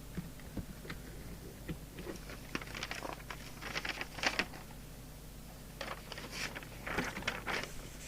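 Quick small clicks and rustles of hands working a CB radio's controls on the bench, in two spells, over a steady low mains hum.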